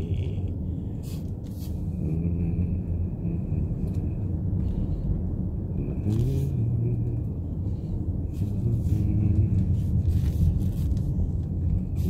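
Steady low rumble of a car driving, with a few drawn-out, slowly gliding melodic notes of chant-like music or singing over it.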